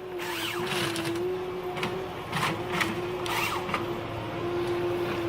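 Ponsse Ergo forestry harvester at work: a steady, even whine throughout, with scattered sharp knocks and short squealing creaks from the machine handling timber.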